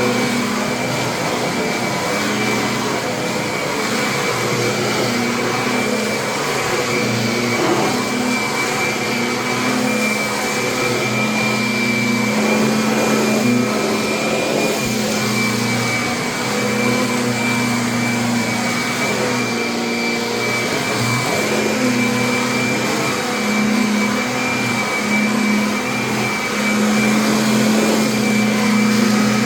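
Kirby upright vacuum cleaner running continuously, with a steady high whine over a low motor hum that shifts slightly in pitch now and then.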